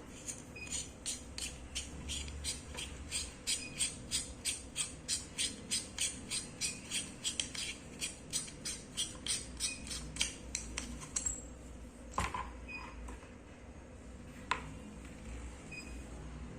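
A quick, even run of light clicks, about three to four a second, for some ten seconds, then two single clicks, from the hand-held flashlight being handled.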